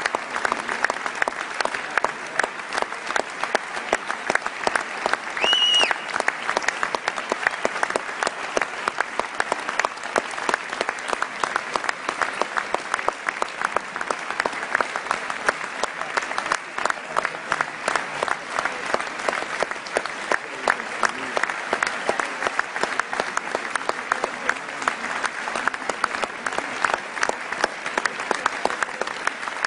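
A large theatre audience clapping in a long, steady ovation. A short high-pitched call rises out of the crowd about six seconds in.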